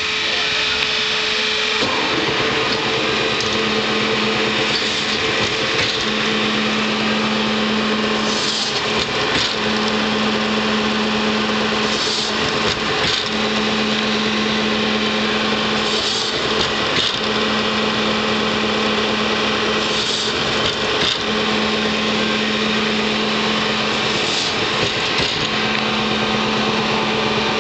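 Cevenini ET8 four-shaft log slitter running: steady machine noise with a constant hum, and a lower tone that comes and goes in stretches of about two seconds. Brief high, noisy surges come about every four seconds.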